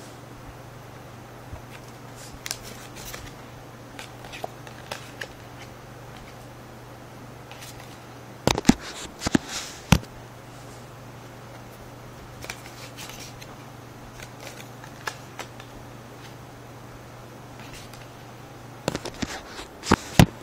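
A deck of playing cards being cut and handled: scattered soft clicks and snaps, with a cluster of loud sharp snaps about eight to ten seconds in and another near the end. A steady low hum sits underneath.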